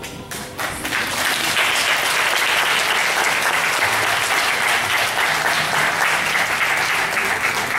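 Church congregation applauding steadily, the clapping starting about half a second in.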